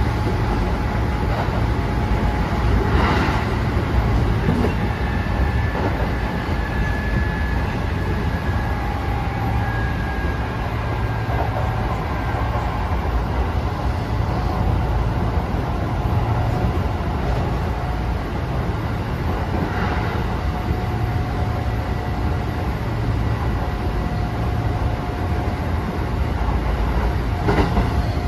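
Kintetsu 9000 series electric train running at speed, heard from inside the passenger car: a steady low rumble of wheels on rail with a faint whine over it, and a few brief knocks.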